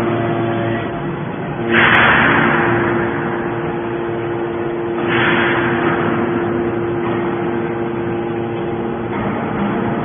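Hydraulic scrap metal baler running: a steady hum from its hydraulic power unit, with two loud hissing rushes, about two seconds and five seconds in, that each fade away over a second or two as the rams cycle.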